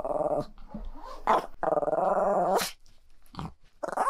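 Chihuahua grumbling in a drawn-out, whiny growl, twice, with short yips in between: complaining and throwing a tantrum at its owner leaving, not aggression.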